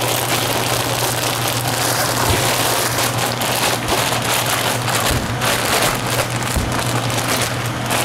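Sealed plastic mushroom grow bag being shaken and kneaded, the grain spawn and soy hull–hardwood substrate inside rustling and crinkling against the plastic as the chunks are broken up and the spawn mixed through. Under it, the steady low hum of the HEPA flow hood's fan.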